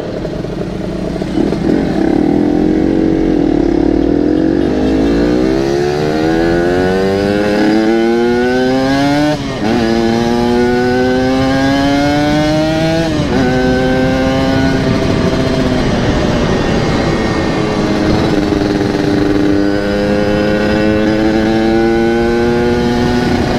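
Yamaha RX-King 135cc single-cylinder two-stroke with a local aftermarket exhaust, accelerating on the road: the engine pitch climbs and drops back at upshifts about nine and thirteen seconds in, then holds fairly steady before rising again near the end. The rider judges from its pull that the carburettor is running very lean.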